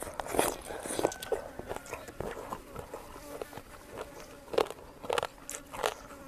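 Close-miked eating: biting and chewing spicy chicken feet, with irregular crunches and clicks.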